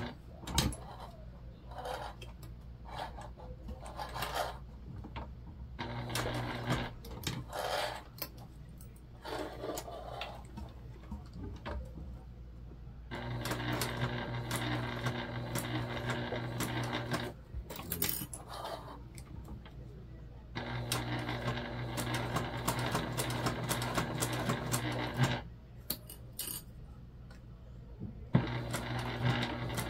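Electric sewing machine top-stitching vinyl, running in stretches of a few seconds and stopping in between as the material is turned and guided. Light clicks and handling sounds come in the pauses.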